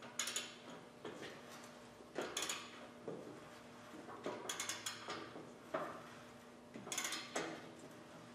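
Clusters of metallic clanks and rattles every second or two as the split halves of an International 1086 tractor are rolled and guided back together on splitting stands after a clutch replacement.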